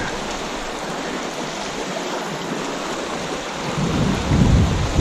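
Steady rushing and hiss of shallow river water running over stones in a low-water rapid. A low rumble of wind on the microphone comes in near the end.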